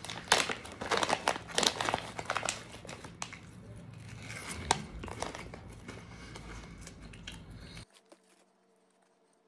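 Plastic snack bag crinkling and tearing as it is torn open by hand, busiest in the first couple of seconds, then softer rustling as it is handled. The sound stops abruptly near the end.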